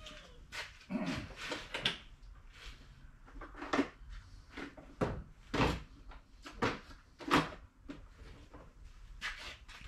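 Hammer tapping a bearing race into a Ford 9-inch pinion support: about a dozen irregular metal knocks, the loudest about seven seconds in.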